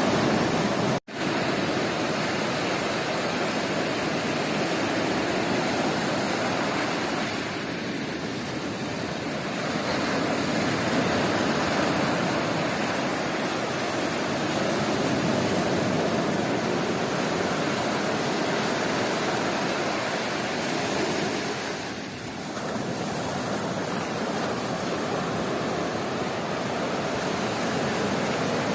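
Sea surf washing onto a beach: a continuous rushing wash of waves that swells and eases slightly. The sound cuts out for an instant about a second in.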